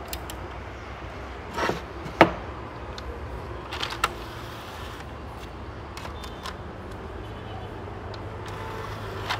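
Clicks and clunks from a DVD player's disc tray mechanism as a disc is handled and the tray is worked. The sharpest click comes a little over two seconds in. A low steady hum sets in about three-quarters of the way through.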